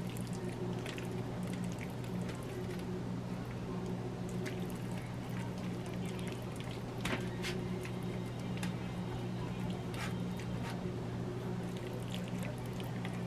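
Thick, wet chicken pot pie filling being scraped with a rubber spatula out of a stainless steel bowl into a foil pan: soft squishy plops and scrapes with a few sharp taps, over a steady low hum.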